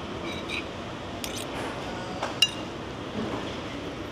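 Tableware clinking: about five light, separate clinks of cutlery against a plate, the sharpest about two and a half seconds in.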